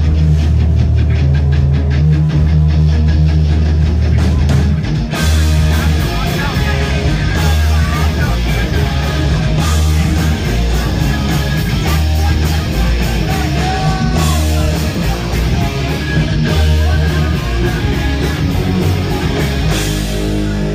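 Loud punk rock band playing live: distorted electric guitars and bass over drums, with the low end heavy. The full kit with cymbals comes in about five seconds in.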